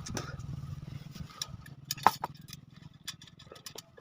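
Scattered light metallic clicks of motorcycle wheel spokes being handled and fitted into the rim's spoke holes, over a low hum that fades about halfway.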